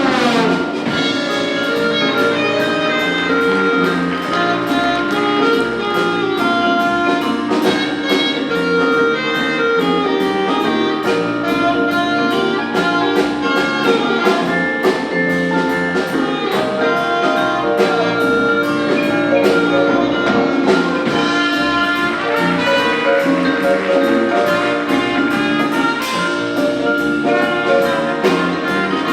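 High-school big jazz band playing, with brass and drum kit and a steady cymbal beat.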